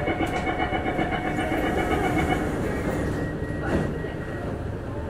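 Rumble of a Singapore MRT train running, heard inside the carriage. A flat, pulsing high tone sounds over it for the first two and a half seconds, and there is a brief knock nearly four seconds in.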